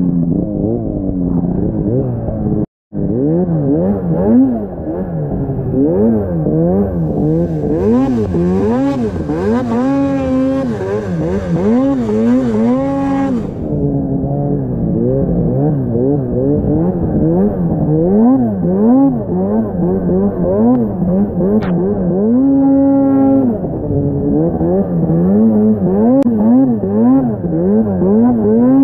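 Snowmobile engine revving up and down over and over as the throttle is worked through deep snow. The sound cuts out for a moment about three seconds in, and a hiss rides over the engine from about eight to thirteen seconds.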